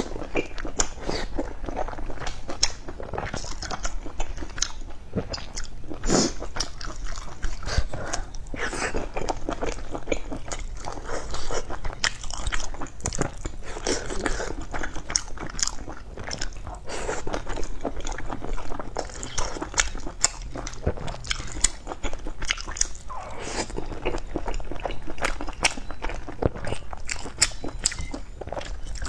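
Close-miked crunchy biting and chewing of fried chicken, with sharp crackles of the crisp coating breaking throughout.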